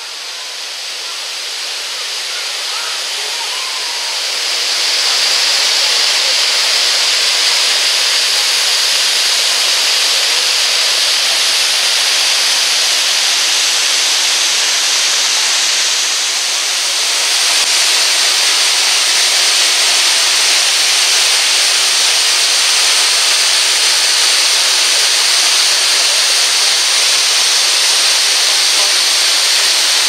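Sgwd yr Eira waterfall: the steady rush of falling water and spray. It swells over the first few seconds, then holds even.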